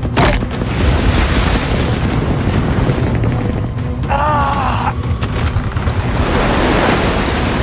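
Dense action-film soundtrack: music with heavy booms and rumble, a sharp crack right at the start, and a short wavering cry about four seconds in.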